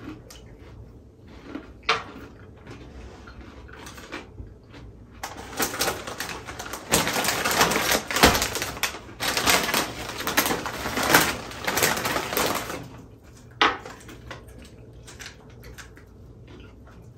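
Close-miked eating sounds: scattered clicks of chewing and utensils, then several seconds of dense crackling crunching from about a third of the way in, then scattered clicks again.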